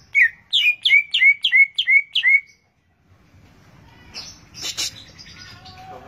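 Green leafbird (cucak ijo) singing a quick run of about seven repeated chirping notes, each a short hooked whistle, then after a pause a brief harsh noise.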